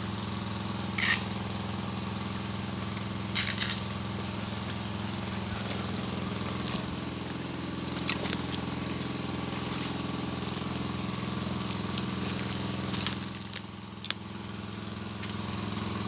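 Small engine running at a steady speed, a constant hum, with a few short clicks and rustles over it and a brief dip in level near the end.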